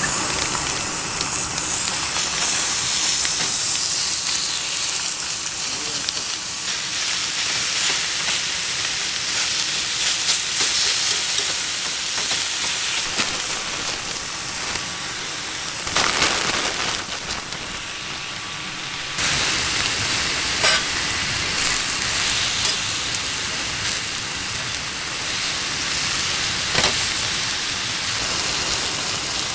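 Food sizzling over a wood fire: a steady frying hiss with occasional sharp crackles from the fire.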